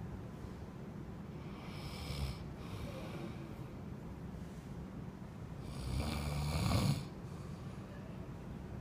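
A person snoring: a short snore about two seconds in, then a longer, louder one that builds and cuts off sharply about seven seconds in, over a steady low hum.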